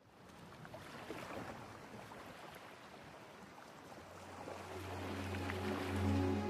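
Water falling and splashing, fading in, with music carrying a low steady drone fading in over it about two-thirds of the way through.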